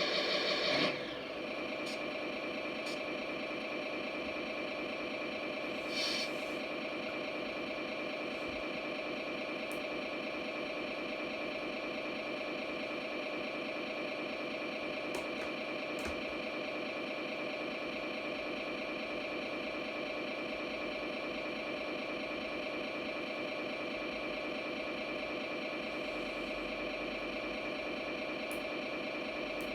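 Tamiya Actros RC truck's sound unit playing a simulated truck diesel engine through its small speaker: it comes down from the start-up in the first second into a steady idle that holds on. A short hiss breaks in about six seconds in.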